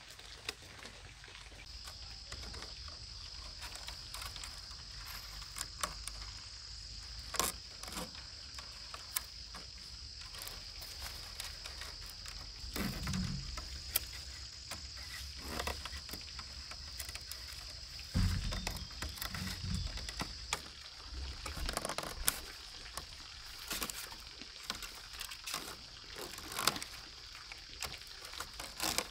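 Thin bamboo strips clicking, ticking and rustling as they are threaded and pressed into a conical bamboo fish trap woven by hand, with a few dull handling knocks. A steady high whine sounds in the background, fading somewhat past the middle.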